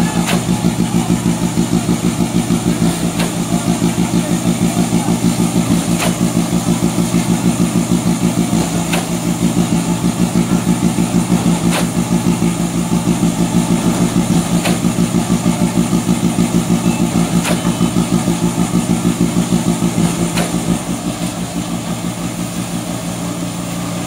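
ABJZ40C concrete mixer pump running hard, its engine throbbing about three times a second, with a sharp knock about every three seconds as it pumps. Near the end the throbbing eases into a steadier, slightly quieter drone.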